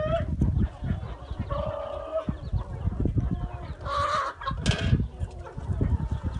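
Flock of free-range chickens clucking and calling, with a drawn-out call about one and a half seconds in and two loud harsh calls around four and five seconds in, over an uneven low rumble.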